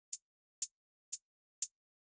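Fast bilateral-stimulation drum tone: short, bright, evenly spaced taps, two a second, four strikes in all.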